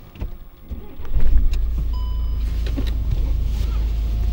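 A vehicle motor starts about a second in and runs on as a steady low hum, with a brief electronic beep about two seconds in.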